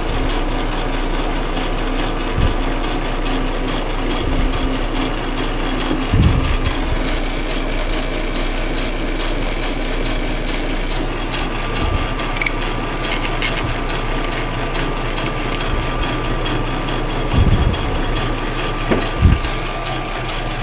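Metal lathe running steadily while a knurling tool rolls a pattern into a spinning aluminum bar, with a few short knocks along the way.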